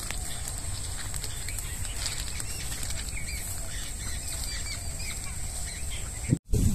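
Footsteps and rustling of grass and rice stalks as a person walks through dense vegetation. Under it is a steady high-pitched hum and a few short bird chirps. Near the end the sound drops out for a moment and comes back with wind buffeting the microphone.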